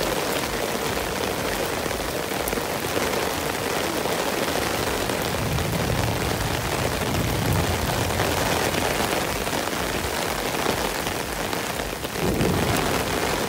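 Steady heavy rain falling and pattering on surfaces, an even hiss without let-up.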